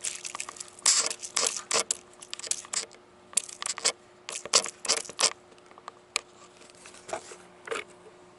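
Trigger spray bottle squirting soap solution onto a propane line fitting, a rapid run of short spritzes for about five seconds, then a few more spaced out near the end. This is a soap-bubble leak check on the gas connection.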